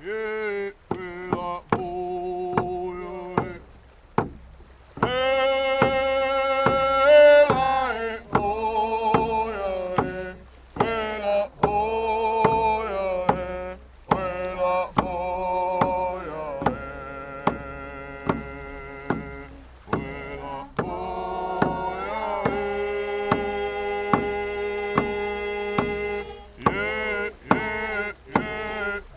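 Singing in long, gliding notes over steady, evenly spaced drum strikes.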